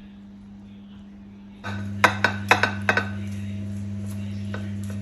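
A handful of quick, sharp clinks of a utensil against a ceramic plate, bunched together in about a second, over a steady low hum that comes in a second and a half in.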